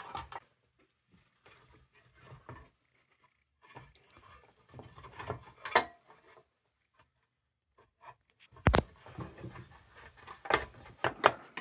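Metal parts of an old kerosene lantern being handled on a workbench: scattered small clicks, taps and rubs, with a sharp knock about two-thirds of the way through and a busier run of clicks near the end.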